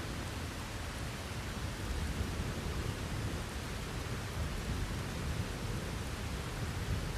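Steady heavy rain with a low rumble of distant thunder underneath.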